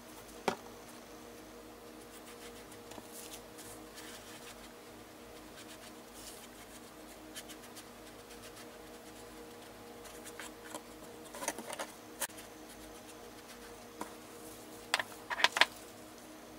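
Handling noises over a steady low room hum: a sharp tap about half a second in, as the glue bottle is set down, then scattered light taps and paper rustles, loudest near the end, as cut napkin and paper pieces are handled on the canvas.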